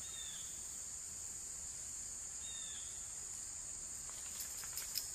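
A steady, high-pitched insect drone, with a bird giving a short falling chirp twice. Near the end come a few sharp light clicks from the wooden toggle and fork-stick trigger being handled.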